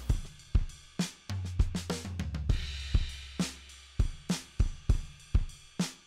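Background music with a drum-kit beat of kick, snare and hi-hat hits over a low held bass note.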